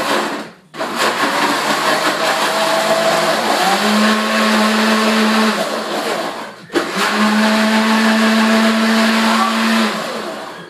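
Blender running with a smoothie mix of fruit and milk, switched off twice for a moment (about half a second in and about two-thirds of the way through). Its motor note steps higher partway through each longer run, then it winds down near the end.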